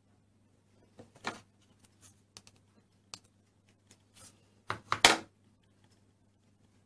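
Plastic Play-Doh toy pieces clicking and knocking as they are handled and set down, in scattered taps with a louder cluster of knocks about five seconds in, over a faint steady hum.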